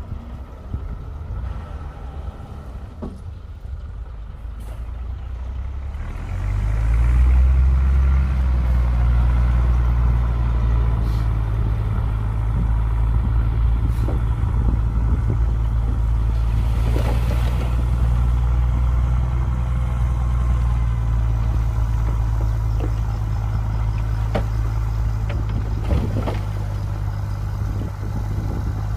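Bulldozer's diesel engine picking up about six seconds in and then running hard and steady under load, with a few short knocks.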